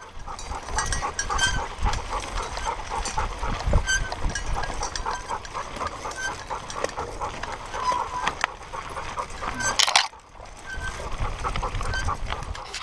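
Dog panting rapidly as it runs, heard close up from a camera harnessed to its back, over a low rumble of wind and the jostling mount.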